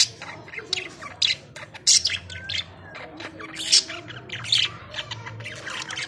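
Budgerigars chattering: a fast, irregular run of short high chirps, with a few louder sharp calls among them.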